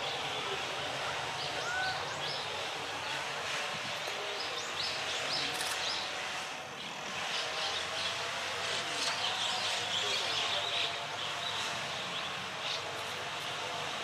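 Woodland birds chirping and calling, many short high notes coming thick and fast, busiest a little past the middle, over a steady background hiss.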